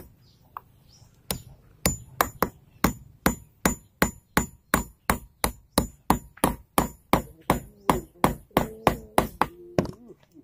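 Hand hammer struck in a steady series of sharp blows, about three a second, with a faint high ring between them; the hammering starts about a second in and stops just before the end.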